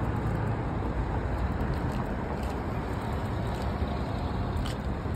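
Steady low rumble of wind buffeting the microphone while riding a bicycle along a paved path, with a few faint clicks.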